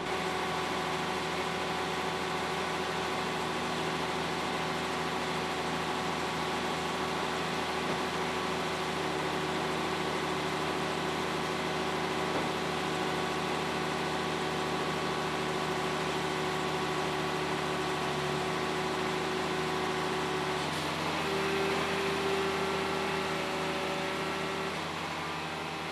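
Diesel engine and hydraulic pumps of a portable car logger running steadily while its rams compress a car. About 21 seconds in, the machine's tone steps slightly higher and a little louder.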